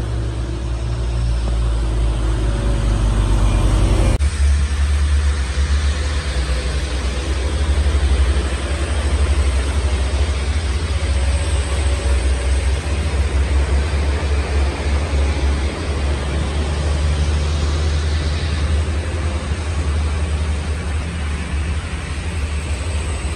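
Diesel engines of sugarcane-laden trucks running under load: first a truck-and-trailer rig, then, after a sudden change about four seconds in, a second loaded truck's engine pulling steadily through a bend with a deep, continuous rumble.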